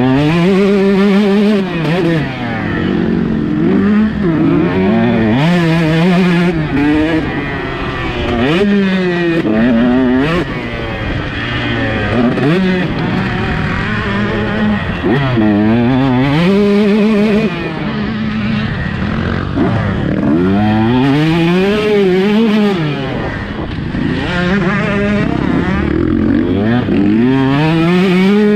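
KTM 150 SX two-stroke motocross bike ridden hard, its engine revving up and dropping back again and again, about a dozen times, as it accelerates, shifts and slows for corners.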